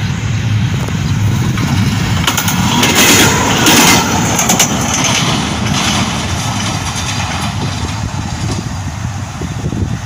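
Diesel locomotive engine running with a steady low rumble as the train comes along the track, with loud clattering and knocking from about two and a half to six seconds in.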